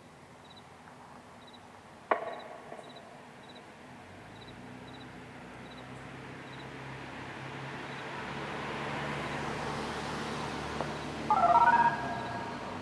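A road vehicle approaches, its low engine hum and tyre noise slowly growing louder. About two seconds in there is one sharp knock that rings briefly, and near the end a short, loud burst of steady tones. Faint, evenly spaced high chirps sound throughout.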